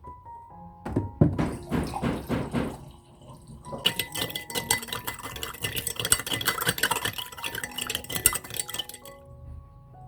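Kitchen sounds over soft background music: a few dull knocks, then about five seconds of water splashing with clinks of dishes or utensils.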